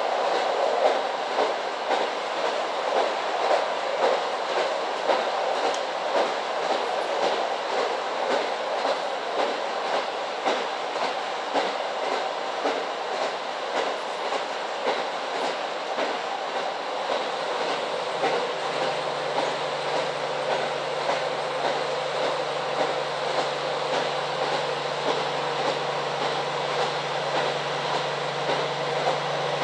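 Cabin running sound of a KiHa 40 series diesel railcar at speed: the wheels click over the rail joints in a steady rhythm under continuous rumble and rail noise. About two-thirds of the way through, a steady low hum joins in.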